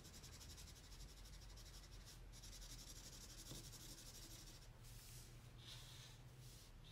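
Faint scratching of a Crayola felt-tip marker stroked back and forth across paper, colouring over a layer of white crayon.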